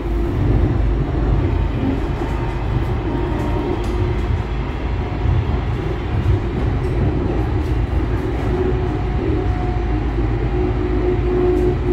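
Light-rail car running along a street, heard from inside the passenger compartment: a steady rumble of wheels and running gear with a constant hum in it.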